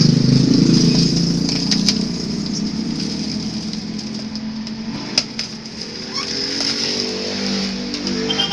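Jaguar S10-j electric sewing machine running at varying speed, slowing a little and then picking up again. There is a sharp click about five seconds in.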